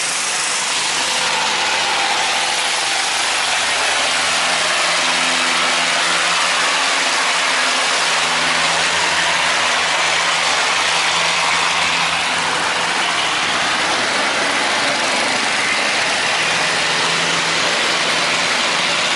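Boat engines of several wooden boats and barges running together, a loud, steady engine noise with a low hum underneath.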